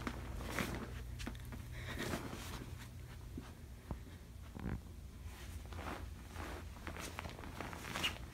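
Faint rustling and handling noises of someone moving quietly, with a few light clicks and taps over a low steady hum.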